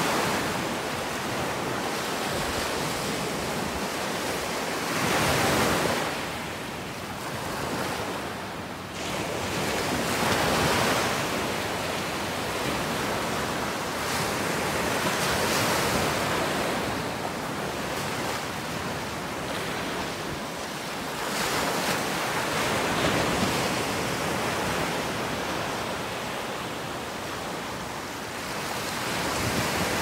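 Small ocean waves breaking and washing up a sandy beach. The hiss of the surf swells and eases in slow surges, one about every five seconds.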